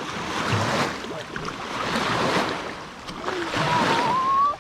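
Wind and lapping water: a rushing noise that swells and fades twice. Near the end a thin tone rises briefly.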